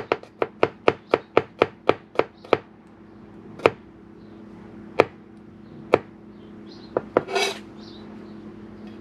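Kitchen knife chopping on a cutting board: a quick run of about five chops a second, then slower single chops about a second apart, and a short scrape near the end.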